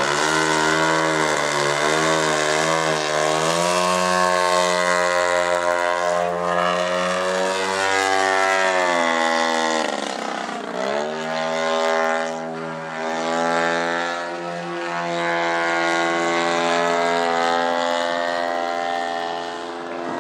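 Desert Aircraft DA-85 single-cylinder two-stroke petrol engine and propeller of a 40% scale Giles 202 model aerobatic plane, running in flight with its pitch rising and falling through the manoeuvres. About ten seconds in the engine note drops sharply and then climbs back up.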